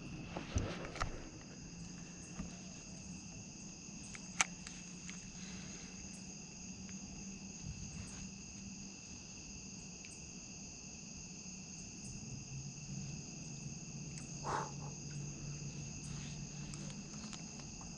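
Steady night chorus of insects, several unbroken high trills at fixed pitches, over a low steady hum. A sharp click comes about four seconds in, and a brief faint knock near the end.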